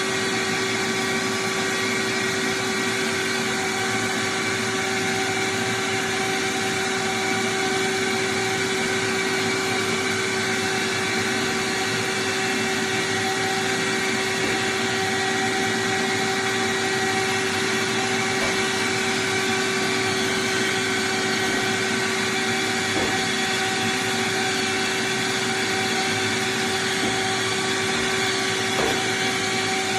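Electric drywall sander running steadily while sanding a wall, a constant motor whine at an even level.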